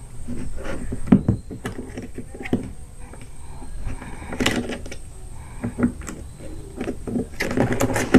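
Hard plastic and metal clicking and knocking as the pump-handle rod is worked into its mounting hole in the plastic base of a knapsack sprayer. A quicker run of clicks near the end is the sound that tells it has snapped into place.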